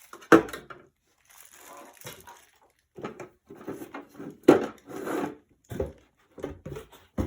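Knocks and clicks of a small aquarium's parts being handled and fitted together, a string of short hard strikes. The sharpest comes about a third of a second in and the loudest about four and a half seconds in.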